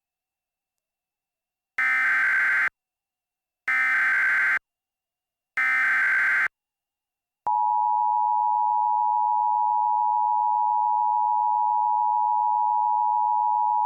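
Emergency Alert System header: three short bursts of buzzing digital data tones about a second apart, then from about seven seconds in the long steady two-tone EAS attention signal, announcing a new alert.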